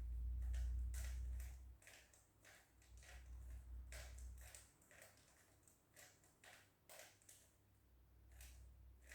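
Plastic Rubik's cube being twisted by hand, with irregular clicks of its layers turning, roughly one or two a second. A low rumble of the cube being handled comes and goes in the first half.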